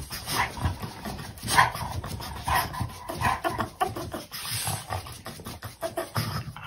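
A dog vocalizing in short, irregular bursts: breathy sounds and low grumbles, some with a thin pitched whine.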